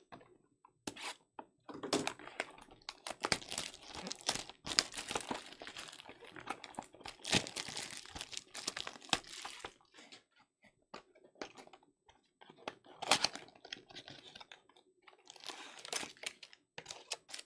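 Crinkling and tearing of clear plastic shrink-wrap pulled off a cardboard trading-card box, in dense crackly rustles. After that come sparser rustles and clicks as the box is opened and the wrapped card packs are pulled out.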